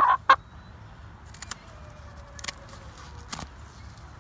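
Handling noise as a hen's spread wing is worked on for clipping. There are two loud sharp clicks right at the start, then a few scattered faint clicks over a low steady background.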